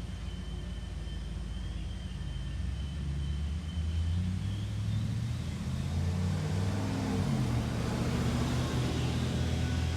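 A motor engine runs with a low rumble, shifting in pitch and getting louder about halfway through, while a broad hiss of wind or road noise builds up.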